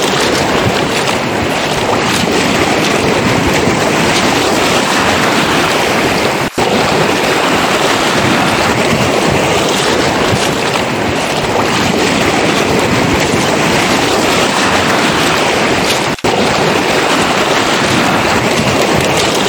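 Sea surf washing on a pebble beach, a dense, continuous rush, with wind buffeting the microphone. The sound cuts out for an instant twice.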